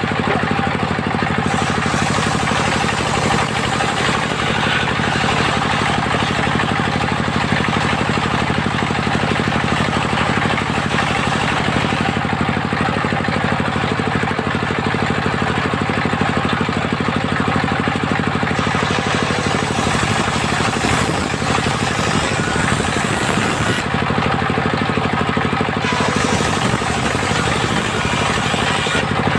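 Engine of a portable circular sawmill running steadily. A higher hiss comes and goes over it in stretches of several seconds.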